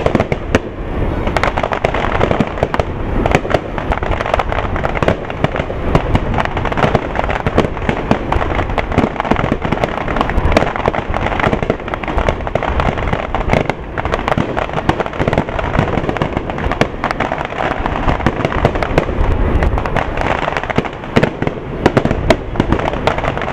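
Aerial firework shells bursting in a continuous barrage: a dense run of overlapping bangs and sharp pops over a low rumble.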